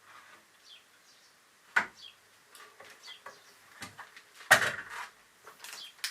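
A scattered series of light knocks, clicks and clatters of objects being handled, with two louder knocks about two seconds in and again around four and a half seconds.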